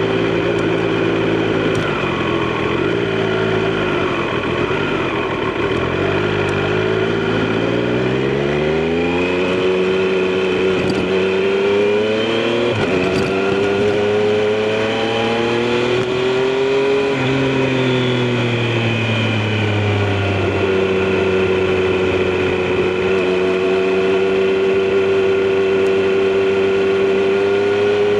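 Triumph Street Triple RS three-cylinder engine and exhaust while riding. It runs steadily at first, then the pitch climbs smoothly as the bike accelerates about a third of the way in. It rises again, falls back a little past the middle, then settles into a steady cruise.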